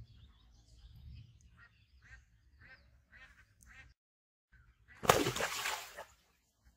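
A person lunging into waist-deep pond water: one loud splash about five seconds in, lasting about a second. Faint bird calls before it.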